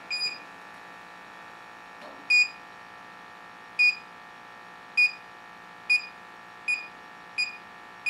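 Electronic combustible-gas leak detector beeping, short single-pitch beeps that speed up from about one every second and a half to more than one a second as its probe moves onto the gas valve fitting. The quickening beeps signal combustible vapour sensed at the fitting, a leak indication, though pipe dope can also set such a detector off.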